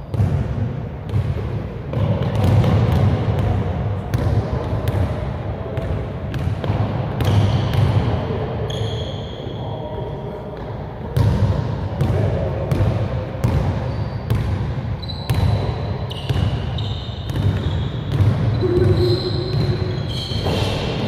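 A basketball dribbled and bouncing on a hardwood gym floor in an irregular run of thuds, with short high sneaker squeaks in between, all echoing in the large hall.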